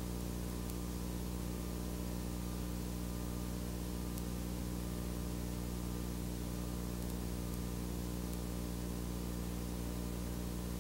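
Steady low electrical hum with a stack of even overtones under a constant hiss, unchanging throughout.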